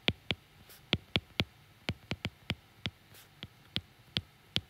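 Stylus tip tapping and clicking on a tablet's glass screen while handwriting: sharp, irregular clicks, about three a second.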